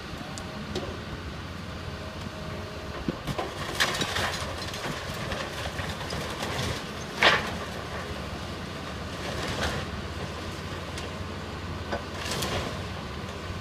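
John Deere excavator's diesel engine running steadily as its grapple works a pile of house-demolition debris. Intermittent crashes and clatter of splintering wood and sheet metal come through, the sharpest about seven seconds in.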